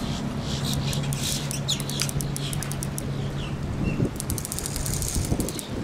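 Birds chirping over the steady hum of a distant boat engine. The hum fades out about two-thirds of the way through, and a fast run of clicks starts at the same time.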